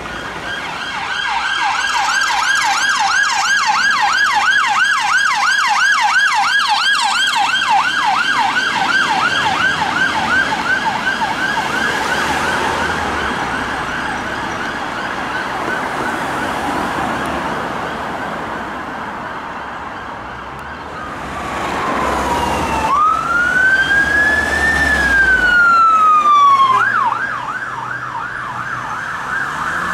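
Emergency vehicle sirens passing in traffic. A rapid yelp fades out after about twelve seconds, and later a slow wail rises and falls once before switching back to a rapid yelp near the end.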